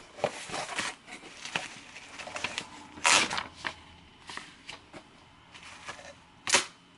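A cardboard shipping box being opened by hand: scattered rustles and clicks of packaging, with a louder rustling burst about three seconds in and a sharp click near the end.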